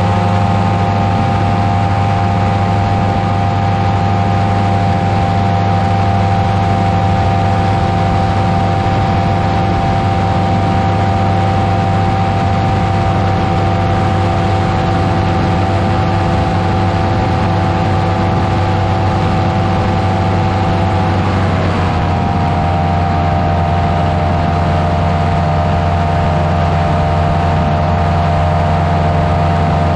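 Buckeye Dream Machine powered parachute's engine and propeller running steadily in flight. About three-quarters of the way through, the engine note dips slightly and holds at the lower pitch.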